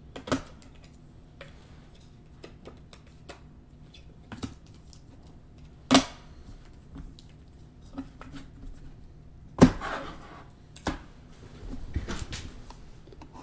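Scattered light clicks and taps of things being handled on a desk, with louder knocks about six seconds in and again near ten and eleven seconds.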